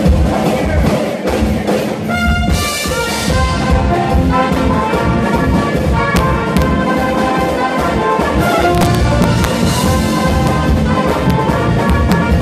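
Live frevo band playing: saxophones and brass horns in fast lines over a pounding bass drum. About two seconds in the drums drop out briefly under a held horn chord, then the full band comes back in.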